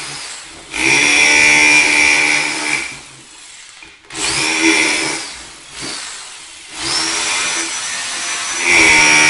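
Bosch GBH 2-20RE 600 W SDS-plus rotary hammer running in chisel (hammer-only) mode against concrete with a 10 mm bit, in several bursts. It starts up about a second in with a rising whine, stops, runs again around four seconds and again around seven, and runs at full strength near the end.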